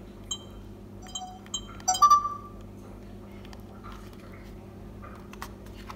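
Sony HDR-CX405 camcorder's touchscreen menu beeps: several short, high beeps in the first two seconds as the setup menu is tapped and scrolled, the loudest about two seconds in. A few faint clicks of handling follow near the end, over a faint steady low hum.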